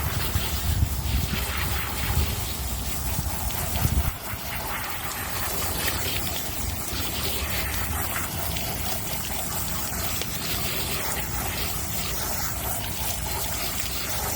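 Water running and gushing steadily, as at a washing place where bedding is being rinsed. A heavy low rumble sits under it for about the first four seconds and cuts off suddenly.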